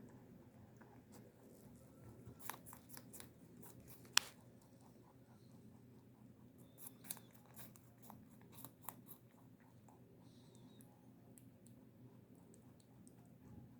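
Faint, scattered small clicks and crunches in loose clusters, with one sharper click about four seconds in.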